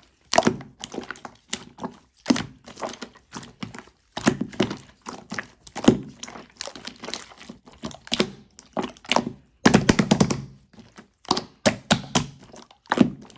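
Blue slime being played with by hand, giving irregular clicks and pops, with a quick run of rapid crackles about ten seconds in.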